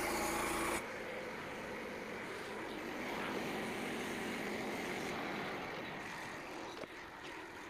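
Frontier OS27 bandsaw mill cutting red oak: the small gas engine drones under the rush of the band blade in the log. About a second in, the steady engine hum drops away and the sound gets a little quieter, while the rushing cutting noise carries on.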